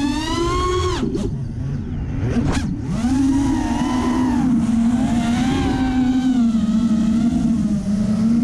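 Brushless motors and 5-inch propellers of a racing quadcopter (Racerstar BR2205 2300kv motors on a 4S battery) whining, heard from the onboard camera. The pitch climbs, drops sharply about a second in as the throttle is cut, dips once more, comes back up about three seconds in and then holds with small rises and falls.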